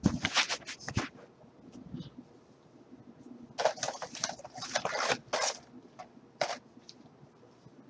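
Close handling noise as the camera is covered or handled: a burst of clicks and rustles at the start, then another run of them about three and a half to five and a half seconds in, with a few single clicks after.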